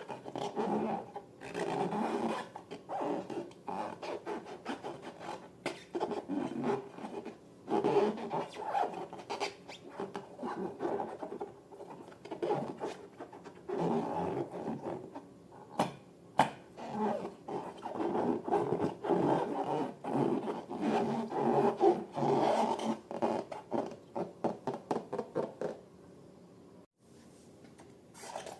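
Irregular rubbing, scraping and squishing of rubber balloons and slime being worked by hand, with scattered small clicks, stopping about two seconds before the end.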